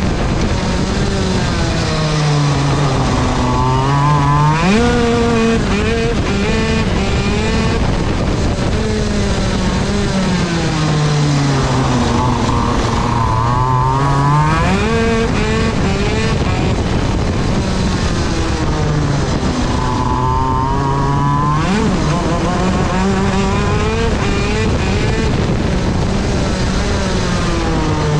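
Onboard sound of a 125cc KZ two-stroke shifter kart engine at racing speed, the revs falling away into corners and rising again on the straights, with three sharp jumps in pitch through gear changes. The clutch is dragging, which the driver says cost about half the engine's power and overheated it.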